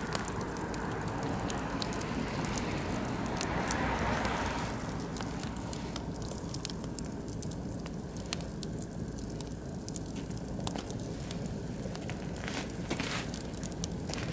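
Oak and beech wood fire crackling in a barbecue grill, with sharp pops scattered irregularly throughout. A soft rushing hiss fills the first five seconds or so, then fades.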